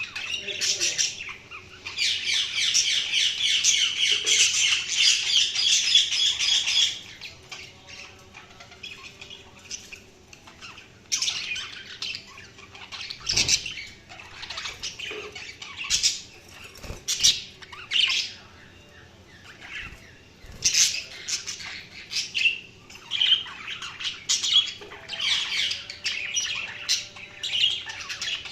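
Budgerigars chattering and squawking. For the first several seconds there is a dense run of fast warbling chatter, then scattered chirps and squawks with a few sharp clicks.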